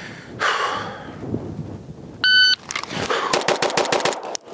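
A shot timer beeps once. About a second later an Atlas Gunworks Erebus 4.6-inch compensated 2011 pistol fires a bill drill from the holster: six shots in quick succession, about 0.13 to 0.15 s apart.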